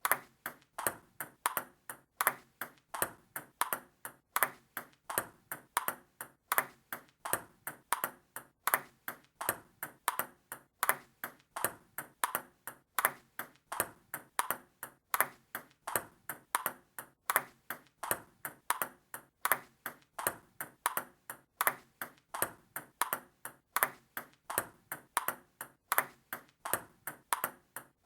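Table tennis ball in a rally, clicking sharply against paddles and table in a quick, even rhythm of several hits a second, with a louder hit about every two seconds.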